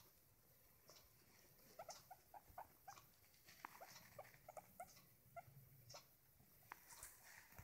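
A guinea pig making a run of short, quiet squeaks, several a second, starting about two seconds in, with a few more near the end.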